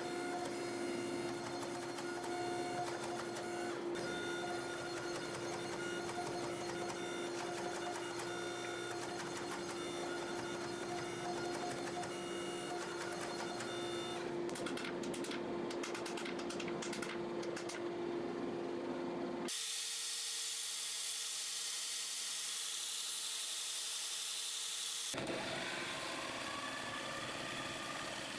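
Hydraulic forging press running with a steady electric hum while it squeezes a hot Damascus billet. About twenty seconds in the hum gives way to a steady hiss for several seconds, and near the end a metal-cutting band saw runs.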